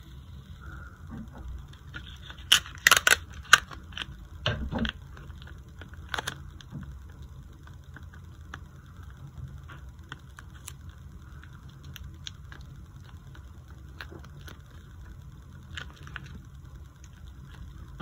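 Clear sticky tape being pulled off its roll and torn: a cluster of sharp crackling snaps about two and a half to five seconds in, with another about six seconds in. After that come scattered small clicks and rustles of handling the tape and a wooden popsicle stick.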